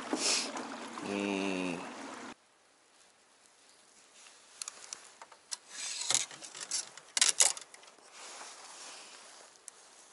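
A short voiced 'ahh' that cuts off abruptly about two seconds in. Then light clicks, taps and rustling as hands handle a spinning rod and reel over a plastic tackle box.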